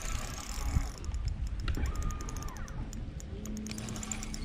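Spinning fishing reel ticking in quick, uneven clicks as a hooked fish is played and reeled in, over a low rumble.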